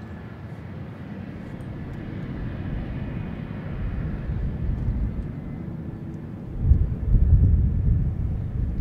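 Jet noise from an F-4EJ Kai Phantom's twin J79 turbojets, rising steadily as the jet rolls along the runway toward the microphone. About six and a half seconds in, a heavier low rumble sets in.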